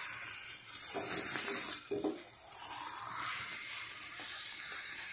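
Cassava stir-fry sizzling in a frying pan on the stove while a spatula stirs it, with louder stirring sounds about one and two seconds in.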